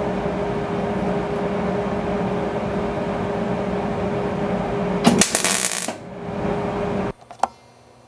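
MIG welder arc crackling steadily while stitch-welding a steel patch panel, with a louder harsh burst about five seconds in, then stopping abruptly about seven seconds in, followed by a couple of small clicks.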